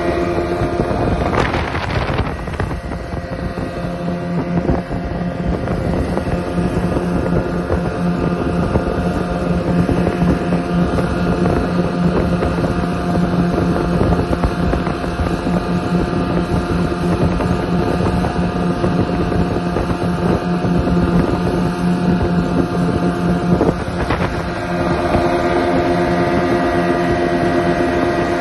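Motorboat engine running steadily at cruising speed, a constant hum over the rush of water in the wake, with wind buffeting the microphone.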